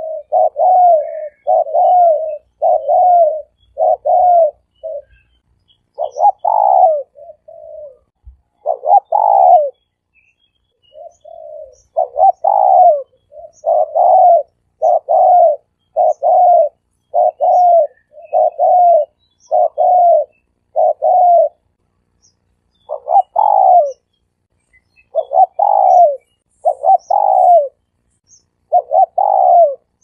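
Spotted dove cooing over and over: a long series of short, slightly falling coo notes in runs, with a brief pause about ten seconds in and another near twenty-two seconds.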